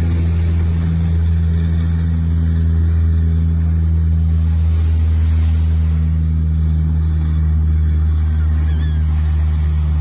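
Twin propeller engines of a Canadair amphibious water bomber running at high power, a steady deep drone as it skims the sea scooping water and then lifts off and climbs away.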